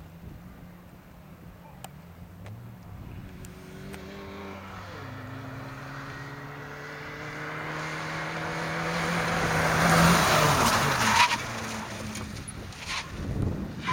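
ZAZ Tavria rally car's engine revving hard as it approaches, its pitch climbing after a gear change, growing louder to a peak about ten seconds in as it slides through the corner with tyre noise, then dropping away sharply.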